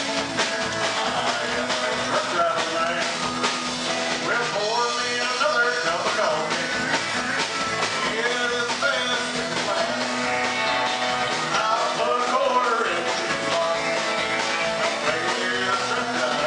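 Live country band playing a Bakersfield-style song on Telecaster electric guitar, pedal steel, keyboard and drum kit, with a steady drumbeat and bending, sliding notes.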